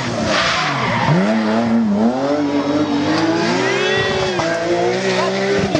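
Rally car engine revving hard, its pitch climbing and falling repeatedly as it accelerates, shifts and lifts off, with a deep drop about a second in.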